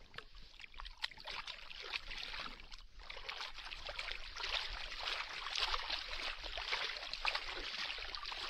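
Water splashing and churning in shallow water as a freshly caught fish is rinsed and flaps about in it: a dense run of small splashes that grows busier and louder about three seconds in.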